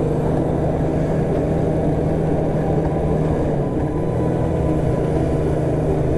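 Snowmobile engine running steadily while riding, a constant drone that holds its pitch.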